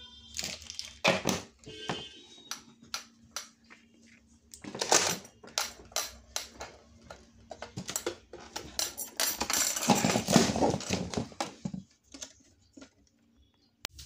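Scattered clicks and knocks with two longer stretches of rustling, over a faint steady hum.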